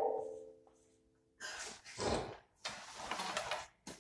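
A strummed ukulele chord rings out and fades away over the first second and a half. It is followed by several short rushes of breathy noise.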